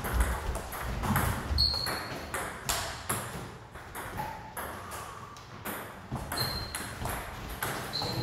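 Table tennis rally: the ball clicks sharply off paddles and the table in a quick, irregular string of taps. There are a few short high squeaks in among them, and some low thuds in the first second or so.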